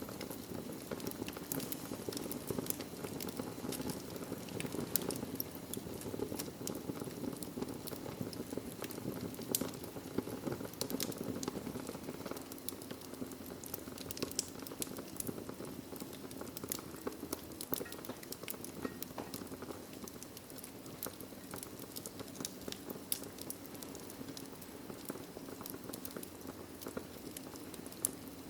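Wood fire burning in a fireplace, crackling: irregular sharp pops and snaps over a steady low rush of the flames.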